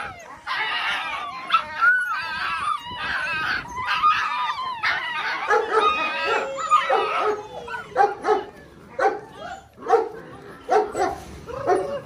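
A litter of six-week-old Belgian Malinois puppies yapping and squealing over one another, many high voices at once. After about seven seconds the calls thin out into short separate yaps, about two a second.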